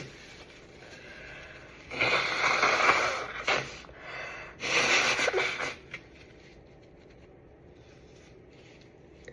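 A person with a cold sneezing twice: two loud, noisy bursts, each about a second long and about three seconds apart, with a short burst in between.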